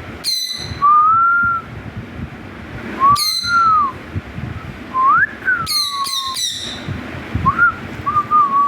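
Pet parrot giving about five short, harsh calls, three of them in quick succession in the middle, between gliding whistled notes.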